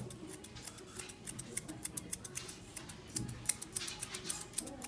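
Dog-grooming scissors snipping through a cocker spaniel's coat around the hind foot, in quick repeated snips, about three or four a second.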